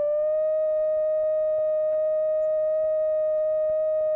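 Steady electronic test tone of about 600 Hz with overtones, from a sound generator driving a row of Helmholtz resonators. It rises slightly at the start and then holds one pitch; the resonator tuned to this frequency is set resonating.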